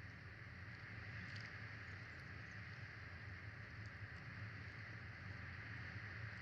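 Faint steady outdoor background from a nest-cam microphone: a low hum and a soft hiss, with a few faint ticks.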